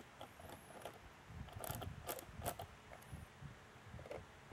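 Phillips screwdriver snugging screws down into plastic posts, a faint run of irregular small clicks and creaks, loudest around the middle.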